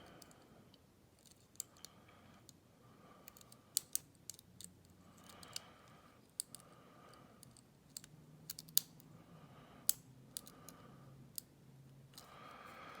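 Small, irregular clicks and light scraping from a lock pick working the pin stack of a Kryptonite padlock's brass six-pin cylinder, with a tension wrench in the keyway.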